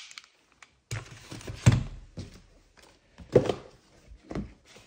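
A few separate knocks and thunks as objects are handled and set down on a table, with the loudest about a second and a half in.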